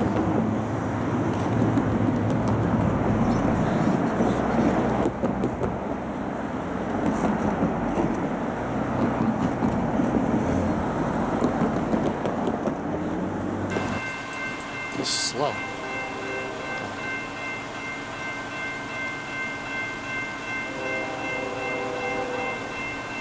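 A train rolling past, with a loud, steady rumble of wheels on rail. It cuts off suddenly about 14 seconds in, leaving quiet ambience with a faint, steady high whine.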